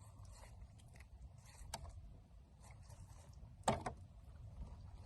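Faint handling sounds over a low steady rumble: a small click a little under two seconds in, then a sharper knock a little before four seconds in.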